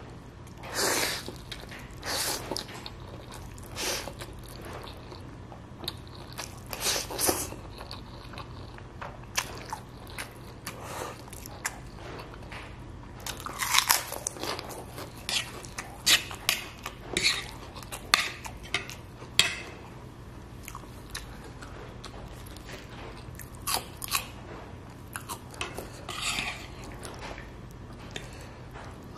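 Close-miked chewing and crunching of a mouthful of Indomie goreng fried noodles mixed with ketoprak, in irregular short bursts.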